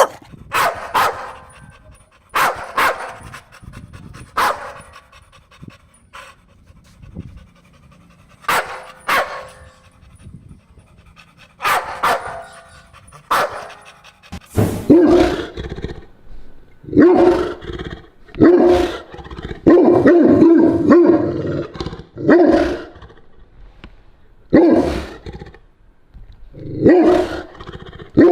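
Dogs barking. In the first half there are single sharp barks every second or two. From about halfway a deeper bark comes in quicker runs.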